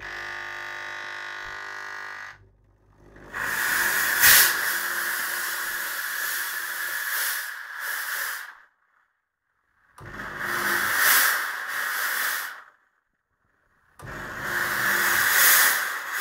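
Chauvet Hurricane 1300 fog machine: a steady buzz for about two seconds, then fog blasting out in loud hissing bursts, a long one of about five seconds and two shorter ones of about three seconds, with silence between them.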